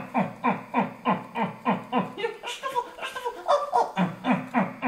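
A voice giving short rhythmic cries, about three a second, each dropping in pitch, with a brief change in the pattern around the middle.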